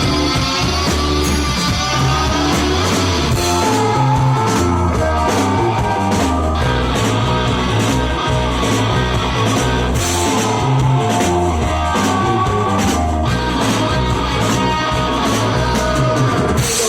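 Rock band playing live: guitar over a bass line and a drum kit, in an instrumental passage without vocals.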